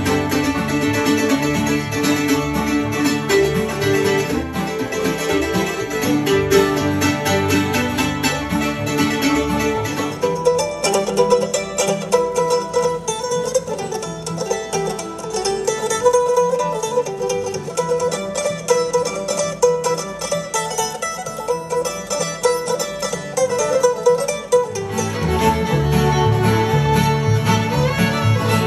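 Bluegrass mandolin picking over a second player's accompaniment, which carries a deep bass line. After about ten seconds the mandolin plays on with little low end beneath it. Near the end a fiddle takes the lead, bowed over deep accompaniment.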